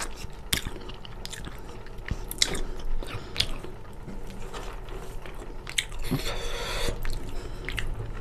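Close-up wet eating sounds: chewing and sharp lip smacks while a chicken drumstick is sucked and eaten by hand, with a longer rustle about six seconds in as fingers mix rice and curry on a steel plate.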